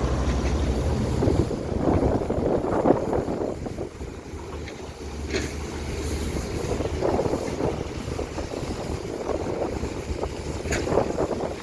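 Hydraulic excavator's diesel engine running, with rushing noise that swells and fades several times over it.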